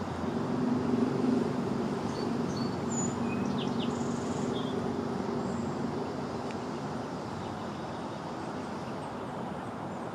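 A steady low engine hum from a distant motor, fading away over the first half, over steady outdoor background noise. A few short, faint high bird chirps come near the middle.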